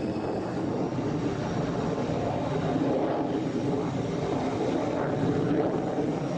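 Jet fighter engine running with a steady, even noise.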